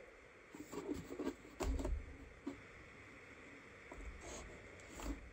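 Hard plastic Frankenstein trick-or-treat bucket being handled and turned over: soft rubs and light taps, with a dull knock a little under two seconds in and a few faint clicks after.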